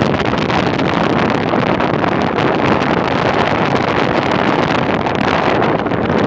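Loud, steady wind rushing and crackling across the microphone on the deck of a ferry under way, with the ship's running noise underneath.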